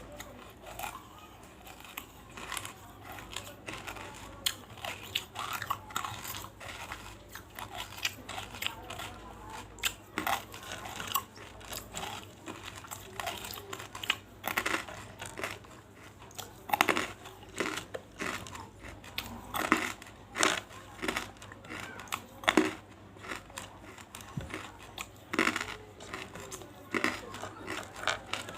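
Close-miked crunching and chewing of big pieces of banslochan (tabashir, the chalky bamboo silica): irregular sharp crunches and crackles, with a dozen or so louder cracks, plus wet mouth sounds.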